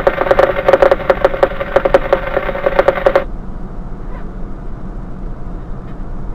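Two-way radio crackling with a broken, rapidly clicking transmission that cuts off suddenly about three seconds in. Under it and after it, the low steady rumble of the idling fire engine.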